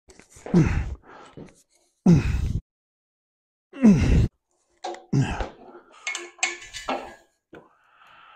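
A man grunting with effort four times, each grunt short and falling in pitch, while turning a Chevy 350 small-block engine over on an engine stand. Metal clanking with some ringing comes from the engine and stand about five to seven seconds in.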